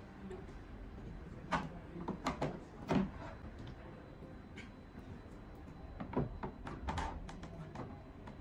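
Light knocks and clatters of shard-shaped puzzle pieces being handled and fitted against a large model jar, a cluster of them a couple of seconds in and more near the end, over a steady low background hum.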